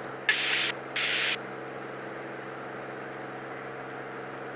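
Cirrus SR22's six-cylinder piston engine droning steadily, heard through the aviation headset intercom. Two short bursts of hiss come in the first second and a half as the intercom or radio channel opens without speech.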